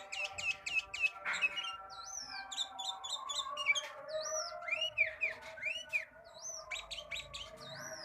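A songbird singing busily, a rapid run of sharp chirps and looping, swooping whistles with brief pauses, over steady background music.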